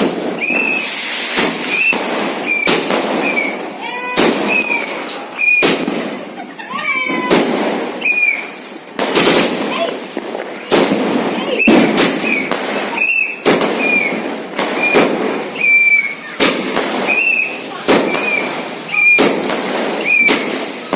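A 240-shot aerial firework battery (Diwali 'air crackers') firing shot after shot in a steady sequence: a sharp bang roughly every two-thirds of a second, each with a brief whistle.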